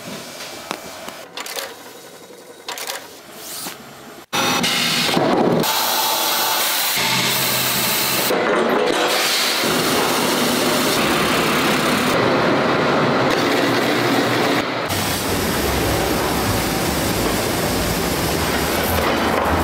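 Faint scattered handling sounds, then about four seconds in a sudden loud, steady rushing noise of factory machinery. A deep rumble joins it about three-quarters through, as a red-hot steel bar runs along a steel mill's roller conveyor.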